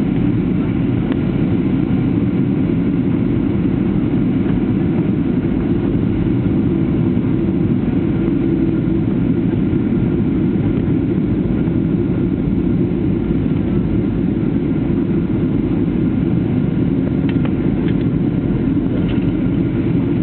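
Steady cabin noise of an airliner on approach: a constant rushing drone of jet engines and airflow.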